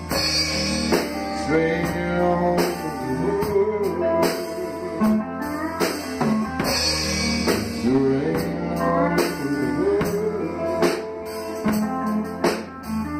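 A live band plays a slow blues-tinged country number: an electric bass guitar holds low notes under a drum kit keeping time, and a lead melody slides and bends above them.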